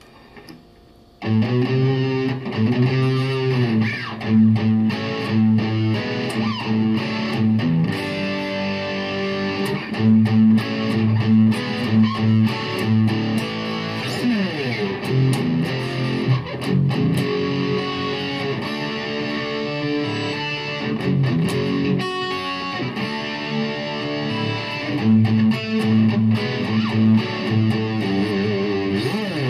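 Distorted electric guitar, an LTD with EMG pickups played through a Yamaha THR10X amp, coming in loud about a second in and playing heavy-metal chords and riffs, with sliding notes around the middle.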